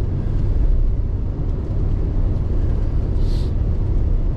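Pickup truck driving, heard from inside the cab: a steady low rumble of engine and tyres on the road, with a short hiss about three seconds in.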